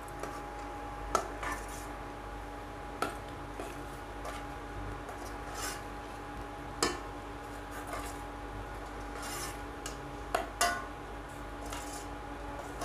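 Steel ladle stirring a thin, watery curry in a non-stick pan, scraping through the liquid and clinking against the pan's side every few seconds, with a steady hum underneath.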